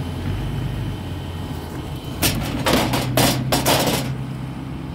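Steady low hum of an idling vehicle engine. About two seconds in come a couple of seconds of clattering and scraping as an old Chevrolet push-button car radio is handled.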